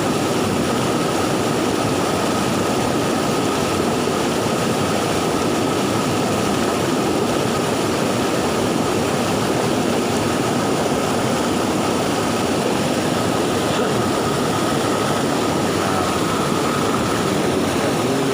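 Swollen river after a flood, rushing steadily and fast, with a thin high steady tone above the water noise.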